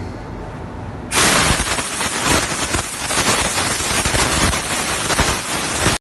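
A loud, steady hiss that starts suddenly about a second in and cuts off abruptly at the end.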